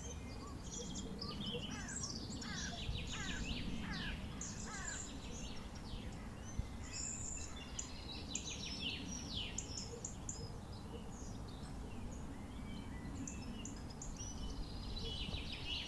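Several small birds singing and chirping from the surrounding hedges and trees, in quick runs of high, falling notes that grow busier near the end, over a steady low outdoor rumble.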